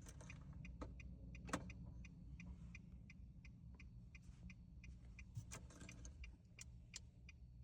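Faint, steady, even ticking from the car during key programming, about three ticks a second, with a few sharper clicks from handling the key or tool, around one and a half seconds in and again near the end.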